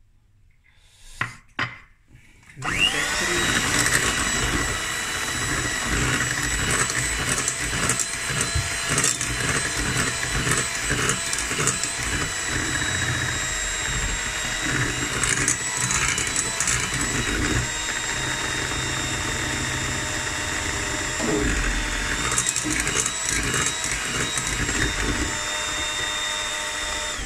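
Ottimo electric hand mixer starting up about two and a half seconds in, after a couple of soft clicks, then running steadily with a high motor whine as its twin beaters whip oil into a batter of beaten eggs and sugar in a glass bowl, with beaters knocking irregularly against the bowl. It cuts off right at the end.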